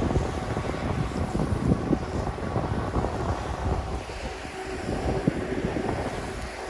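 Wind buffeting the microphone during a downhill ski run, with the rushing hiss of skis over snow, rising and falling in irregular gusts.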